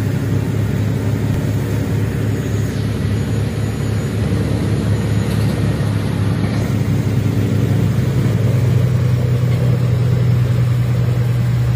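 Patrol boat's engines running hard under way: a steady, loud drone with a hiss of wind and spray over it. The drone's pitch steps up slightly about eight seconds in.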